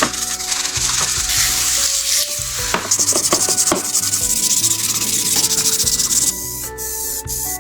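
Scratchy abrasive rubbing, as of sanding a surface, that stops abruptly about six seconds in and is followed by a few sharp clicks, over background music.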